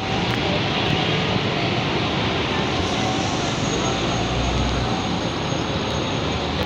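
Steady rush of heavy rain and traffic on a wet road.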